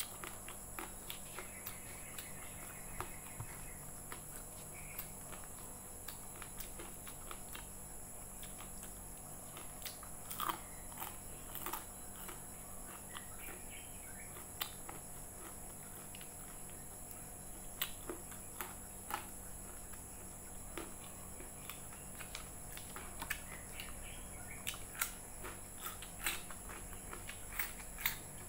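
Close, faint mouth sounds of eating fried rice vermicelli and fritters by hand: chewing, with scattered short smacks and clicks, over a steady background hum. Near the end comes a bite into a raw cucumber.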